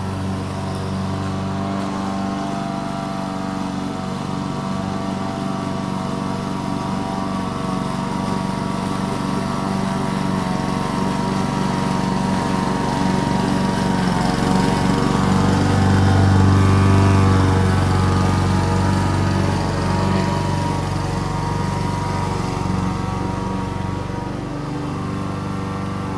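Lawn mower engine running steadily while cutting grass. It grows louder to a peak about two-thirds of the way through, then eases off again, as on a pass near the microphone.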